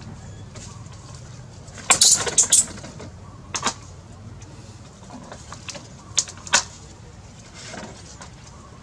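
Thin plastic water bottle crackling and knocking against bamboo slats as macaques grab at it: a quick cluster of sharp crackles about two seconds in, then a few single cracks later, over a steady low background rumble.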